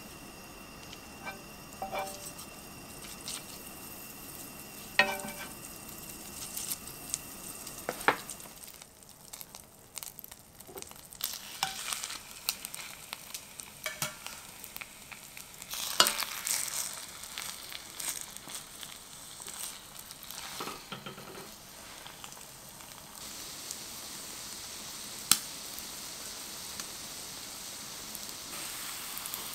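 Butter sizzling in a frying pan, then egg-and-coffee-soaked bread slices frying in the hot butter with a steady crackling sizzle. A few sharp taps are scattered through it.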